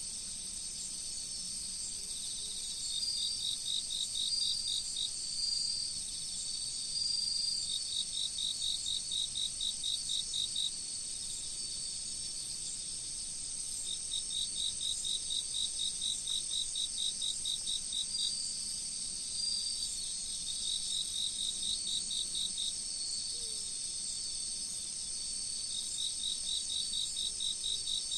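Autumn crickets chirping in chorus: a steady high trill underneath, with trains of quick, evenly spaced chirps at about five a second that run for a few seconds, pause, and start again.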